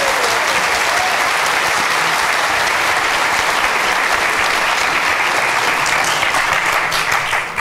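An audience in a large hall applauding, steady and sustained, after a short talk ends.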